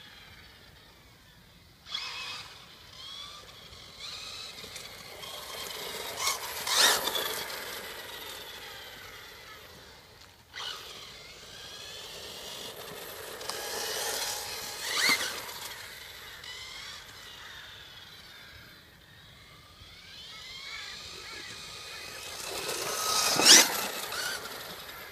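Carson S4 radio-controlled car driven fast on asphalt, its motor giving a high-pitched whine that sweeps up and down in pitch as it speeds up and slows. It swells as the car passes close three times, about 7, 15 and 23 seconds in, the last pass near the end the loudest.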